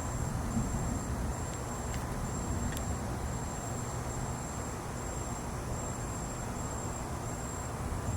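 A cricket trilling in long high-pitched pulses with short gaps, over a steady low rumble.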